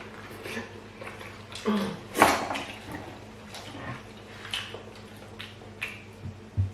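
Wet eating sounds of fufu eaten by hand with light soup: scattered soft smacks, slurps and splashy clicks, the sharpest about two seconds in.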